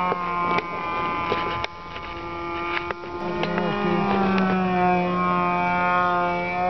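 Engine of a radio-controlled P-51 Mustang model running in flight: a steady, high buzzing drone whose pitch wavers slightly from about halfway through. A few sharp clicks come in the first three seconds.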